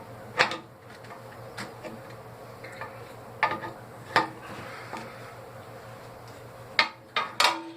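Metal hand tools and compressor fittings clinking and knocking as they are handled, a handful of sharp clicks at irregular intervals, over a steady low hum.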